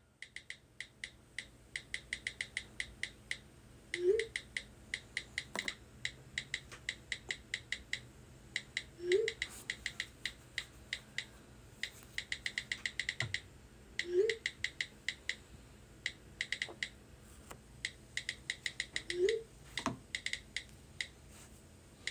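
Rapid runs of touchscreen keyboard clicks from a phone as a text message is typed. A short rising tone sounds about every five seconds and is louder than the clicks.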